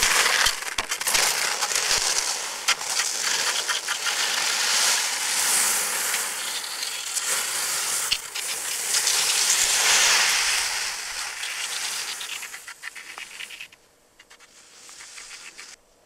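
Cross-country skis and poles hissing and scraping over crusted spring snow, with crunching and clicking. The snow is frozen hard on top from the night frost. The sound drops away sharply about fourteen seconds in.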